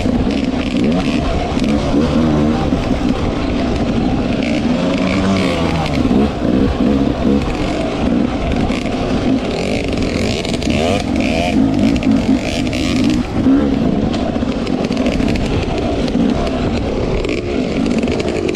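Off-road dirt bike engine running and revving up and down continuously while being ridden, its pitch rising and falling with the throttle.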